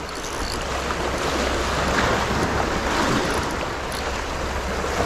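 Sea waves washing and breaking against shoreline rocks, a steady rushing noise, with wind buffeting the microphone as a low rumble.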